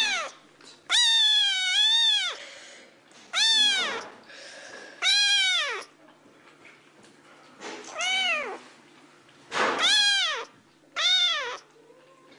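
Kitten meowing over and over: about seven high meows, each rising then falling in pitch, with short pauses between. The second meow is the longest, over a second, with a double rise.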